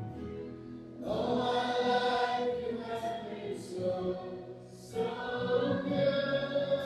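A group of voices singing a worship song together in long, held phrases, a new phrase starting about a second in and another about five seconds in.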